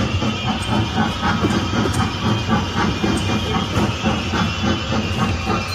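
Recorded train sound: a steady steam-like hiss over a quick, rhythmic clatter.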